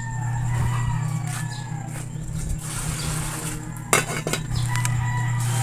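Stainless steel pot lid clanking against a pan as it is handled, a short sharp clatter about four seconds in, over a steady low hum.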